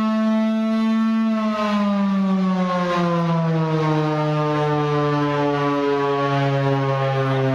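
Civil defence siren sounding one steady tone, then falling slowly in pitch after about a second as it winds down, settling on a lower tone near the end.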